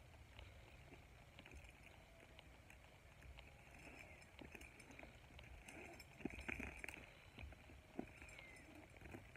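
Faint, scattered clicks and knocks of a tree climber's single-rope (SRT) climbing gear and harness hardware as he climbs the rope, with two sharper knocks in the second half.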